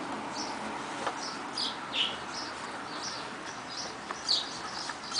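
A small bird chirping over and over, short high chirps about twice a second, with a couple of faint knocks in between.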